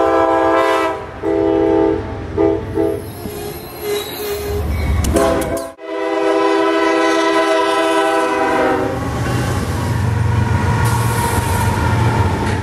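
Locomotive air horn sounding a series of short blasts, then, after a cut, one long blast. The horn then gives way to the low rumble and wheel noise of a train passing close.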